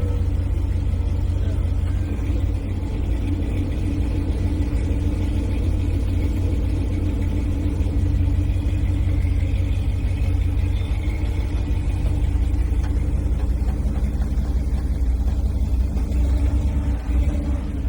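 Off-road vehicle engine running steadily at low speed, a deep, even rumble.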